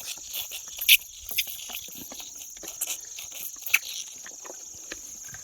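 Insects chirring as a steady high hum, over which a feeding calf makes a few short, sharp slaps and slurps, the loudest about a second in and another near the end of the fourth second.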